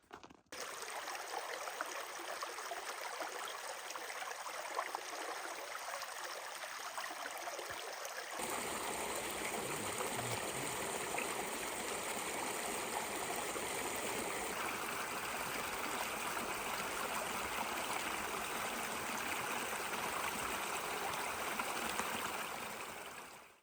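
A stream running steadily, a continuous rushing of water. About eight seconds in it abruptly becomes fuller and deeper, and it fades out near the end.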